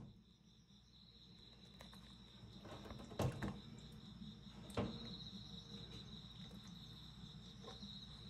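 A few light knocks of turtle shells and claws on a stainless-steel tub, about three seconds in and again near five seconds. Under them run a low hum and a steady high-pitched trill.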